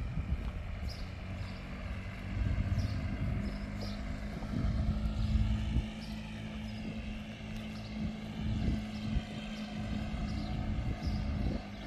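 Outdoor street ambience heard while walking: footsteps and a low rumble on the microphone, under the steady hum of a distant engine that sets in about two seconds in and fades near the end, with faint short bird chirps.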